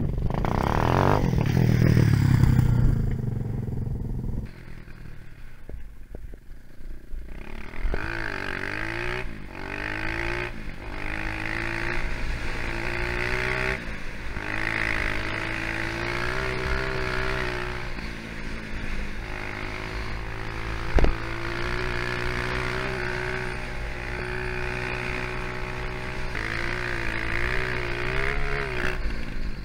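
Engine of a 250cc four-stroke dirt bike heard from on board while riding along a gravel road, its pitch rising and dropping with throttle and gear changes. It opens with a loud rush that falls in pitch, and a single sharp knock comes about two-thirds of the way through.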